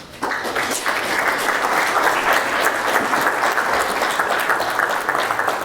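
Guests applauding, many hands clapping steadily after a reading ends; it starts about a quarter second in and begins to fade near the end.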